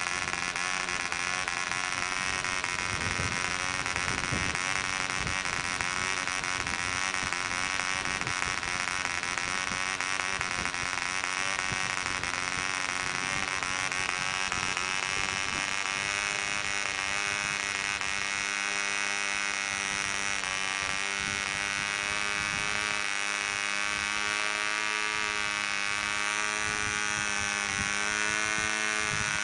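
Clanford Clan 0.48 cc model diesel engine running at high speed, turning a 7x4 nylon propeller: a steady, high buzz. Its pitch wavers in the first half and holds steadier from about halfway on.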